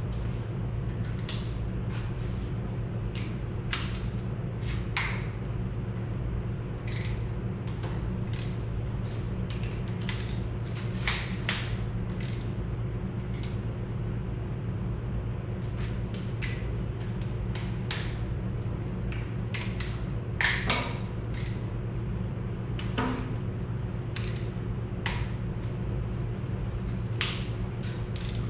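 Scattered metal clicks and clinks of hand tools working on a Farmall Super C's engine while the cylinder head is being removed, over the steady hum of a large shop fan. The sharpest clinks come about 20 and 23 seconds in.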